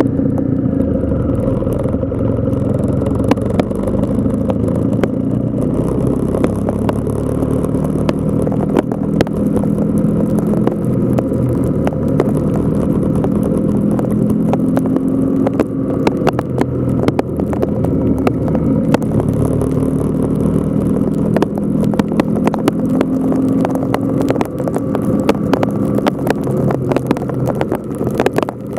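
Motorcycle engine running under way, its pitch rising and falling with the throttle through the bends. Wind noise and frequent sharp ticks of sleet striking the camera run throughout.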